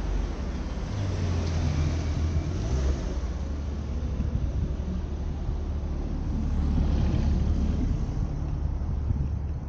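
Street traffic: a steady low engine rumble with tyre noise, swelling a little about seven seconds in.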